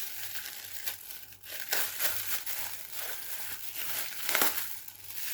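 Packaging crinkling and rustling as an item is handled and unwrapped, with several louder crackles.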